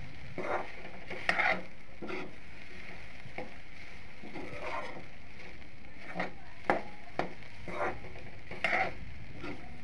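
Spatula stirring and scraping chopped okra and crushed peanut powder around a metal kadhai, about ten uneven scrapes over a steady low sizzle of frying.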